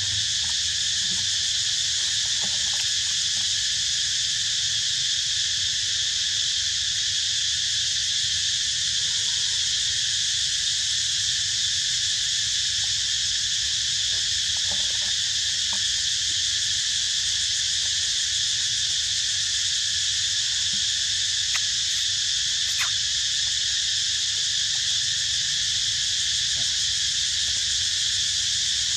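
Steady, high-pitched drone of a forest insect chorus, unbroken throughout, with a couple of faint clicks about three-quarters of the way in.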